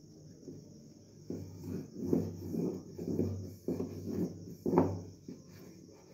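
Wooden rolling pin rolled back and forth over chapati dough on a stone floor, a rumbling scrape with each stroke, about two strokes a second, starting about a second in.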